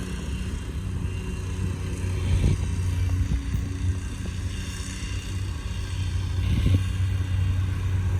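Southbound CSX freight train going by fast, with a steady low diesel locomotive drone and a few brief knocks.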